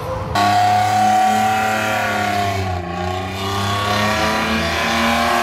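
Car engine revved high and held there, its pitch wavering slightly, starting suddenly and cutting off about five seconds later.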